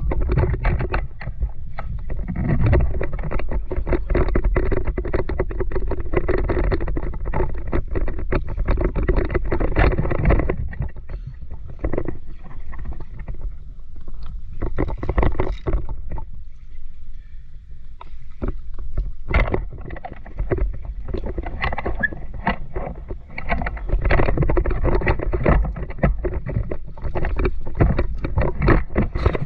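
Water sloshing and splashing around the camera, with many irregular knocks and a low rumble. It is briefly quieter a little past the middle.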